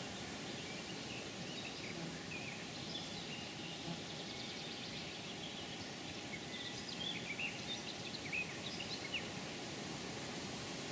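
Birds chirping in short calls over a steady outdoor background hiss, the calls growing busier in the second half.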